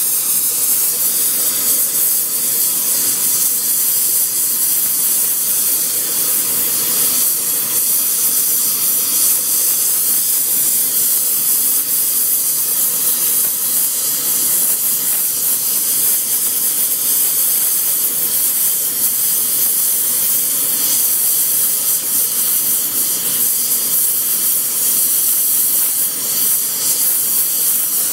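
Gas torch flame hissing steadily while it heats the edge of a steel hammer for brazing on a hard-facing alloy cord.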